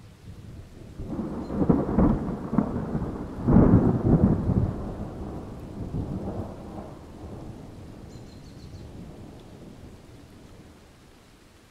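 A rolling thunderclap: a low rumble builds, cracks loudest twice, about two and four seconds in, then rolls on and slowly fades away.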